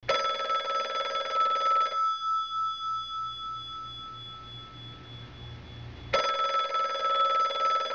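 Telephone ringing twice: a ring of about two seconds, a pause of about four seconds, then a second ring.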